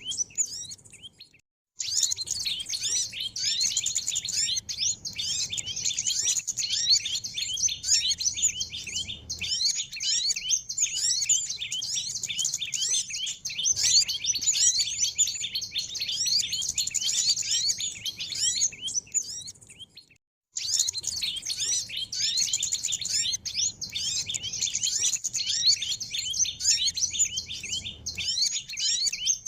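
Bird-lure (pikat) recording of a dense chorus of many small birds chirping and twittering, high-pitched and continuous. It drops out to silence briefly twice, about a second in and about two-thirds of the way through.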